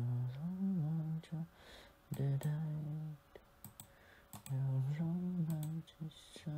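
A person humming a tune in three long held notes, with sharp computer mouse clicks between and over them.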